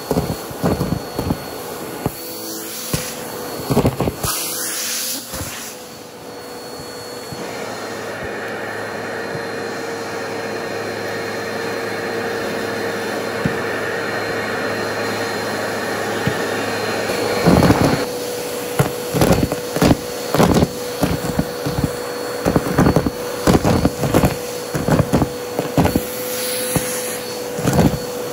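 Bissell CleanView vacuum running with its hose, a plastic cup over the nozzle, sucking deflated balloons and small white erasers off carpet. The motor runs at a steady pitch, with rapid rattling and crunching as pieces go up the hose for the first few seconds, a steadier stretch of plain suction in the middle, then dense rattling again for the last ten seconds or so.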